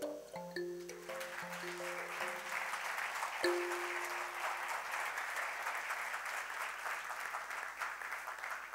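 Audience applauding in an auditorium. The last few notes of the live musical accompaniment step along under the start of the applause and die away about three seconds in.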